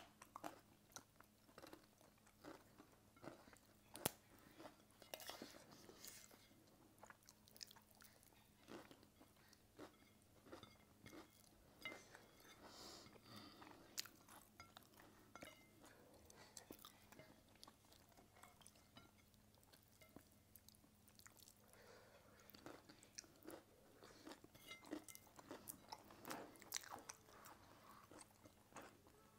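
Quiet mukbang eating sounds: chewing, with many small clicks and crunches as rice and curry are eaten with the fingers.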